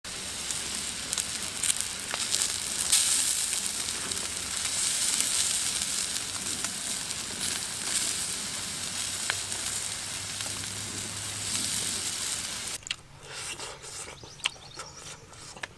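Fish roe sizzling on a hot stone slab over a wood fire: a steady hiss with scattered crackling pops. About 13 s in it cuts off suddenly, leaving only faint scattered clicks.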